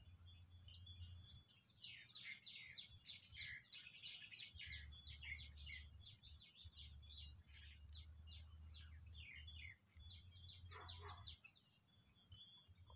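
Faint bird chirping: a fast run of short, high, falling chirps, with a few lower falling calls near the end, over a low steady hum.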